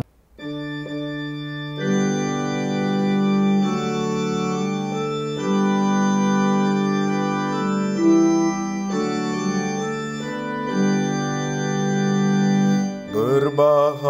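Organ playing the introduction to a psalm refrain in held chords that change every second or two; a singer's voice comes in near the end.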